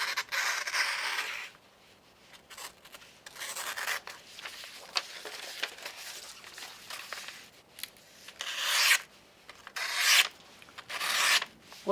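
Stainless steel folding-knife blade being forced through a sheet of computer paper, rasping and tearing rather than slicing cleanly. There is a long scrape at the start, fainter scraping through the middle, and three shorter scrapes near the end. The blade's grind is not cutting the paper cleanly.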